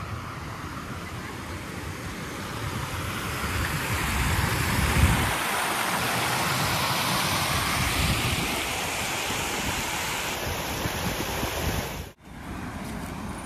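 Rushing water of a small cascade on a city water channel, a steady hiss that swells louder through the middle, with wind rumbling on the microphone. It breaks off for a split second near the end.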